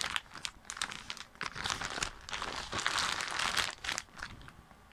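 Plastic packaging crinkling and rustling as it is handled and pulled open, a quick run of irregular crackles that dies down near the end.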